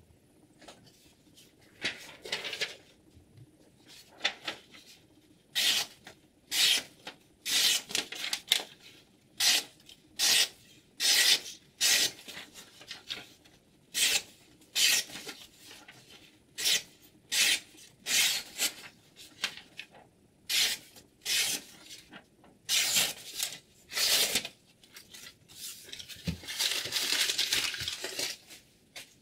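Whetstone on a Hapstone T1 guided knife sharpener rubbing along a knife blade in about two dozen short, rasping strokes, a little under one a second. A longer continuous rasp comes near the end.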